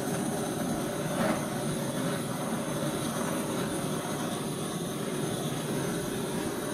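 Handheld butane torch flame hissing steadily as it is swept over wet acrylic pour paint to bring the silicone through and open up cells, with a brief louder flare about a second in.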